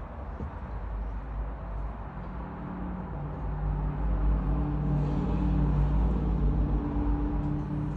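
Car engine running steadily with a low hum that grows louder about four seconds in, then eases off near the end.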